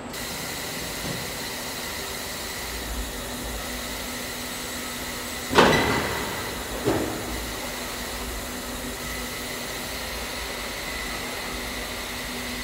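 Steady hum of body-shop machinery with a few held tones, broken about five and a half seconds in by a loud metallic clunk that rings out, and a smaller clunk just over a second later, as the car body shell on its conveyor comes to a stop in the robot welding cell.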